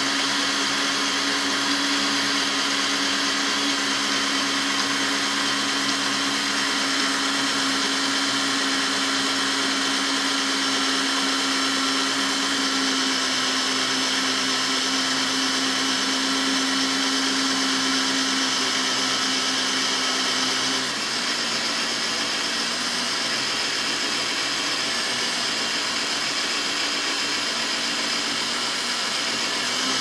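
Cordless drill running steadily under light pressure as it drills out a copper rivet through a leather stirrup-buckle tongue. The motor's pitch and loudness drop slightly about two-thirds of the way through.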